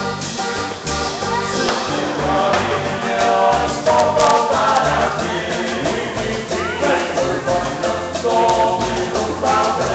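Live Latin dance band playing: accordion, keyboard and percussion with a steady beat under a singer's voice, recorded from the crowd on a phone.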